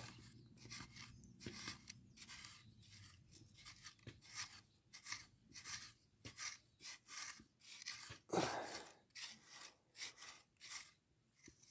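Metal tines of a hand cultivator scraping and scratching through dry, loose soil in short, faint strokes, about two a second. One louder, longer scrape comes a little past eight seconds in.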